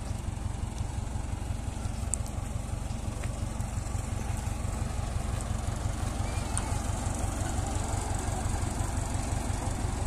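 A vehicle engine running steadily, a low even rumble with no change in speed.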